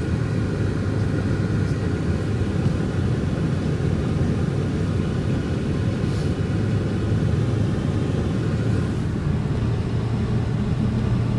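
Car driving on a snowy road, heard from inside the cabin: a steady low rumble of engine and tyres.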